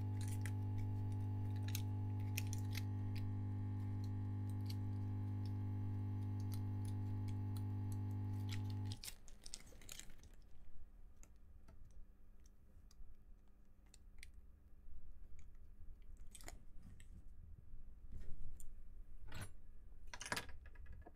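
Clicks and crinkles of a roll of double-sided adhesive tape being handled in its plastic bag and pressed onto a plastic e-reader bezel. Under the first part runs a steady low hum that stops abruptly about nine seconds in.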